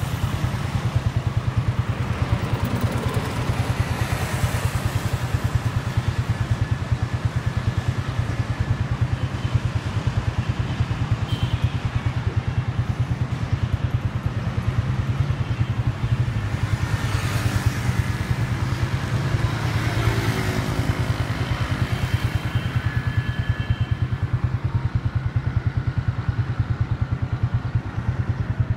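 Road traffic: a small engine's low, even pulsing runs steadily, and other vehicles pass, swelling about four seconds in and again from about seventeen to twenty-one seconds.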